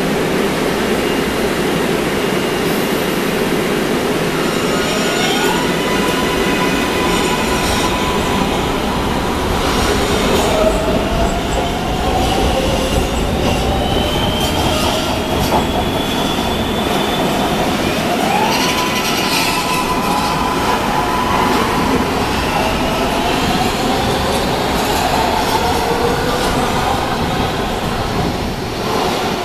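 MARTA rapid-transit trains running through an underground station: a steady rumble of wheels on the rails with electric motor whines that rise in pitch. Twice, a whine climbs and then holds steady.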